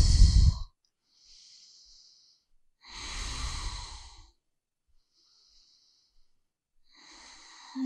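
A woman breathing slowly and audibly while holding a yoga pose: soft, hissy inhales alternate with louder, fuller exhales, about two breath cycles. The loudest exhale comes about three seconds in.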